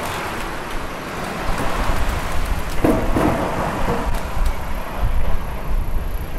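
Road traffic on a city street: a steady rumble and hiss of passing cars.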